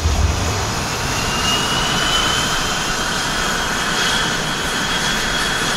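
Jet airliner engines running up after starting, a loud rushing sound with a high whine that rises a little and then holds steady. A low thud comes right at the start.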